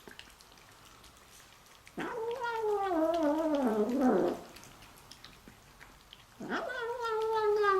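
A kitten's long, wavering yowls, twice, each sliding down in pitch. It makes them at its food as another cat comes near: a food-guarding warning.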